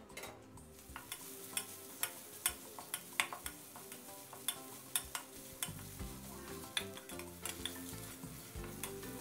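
A spatula scraping and knocking against a steel wok while a pounded paste of dried chillies, shallots and garlic is stir-fried in a little oil, with a faint sizzle underneath. The knocks come irregularly, about one or two a second.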